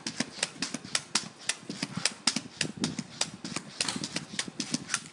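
Pogo stick bouncing on a concrete slab: a quick, uneven run of sharp clacking knocks as it strikes and rebounds.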